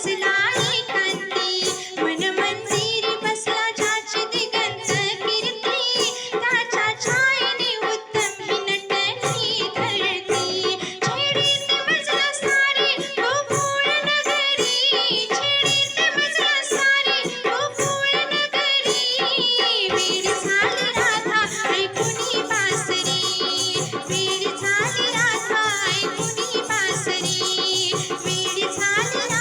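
Marathi gavlan devotional song: singing over a steady drum beat with instrumental backing.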